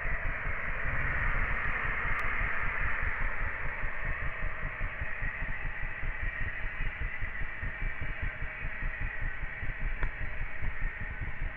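Steady rolling rumble and hiss of a moving train heard from inside the passenger carriage, with a rough, uneven low throb beneath the rushing noise.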